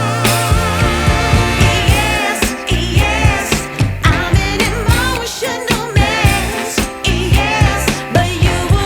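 Background music: a sung melody over a steady beat.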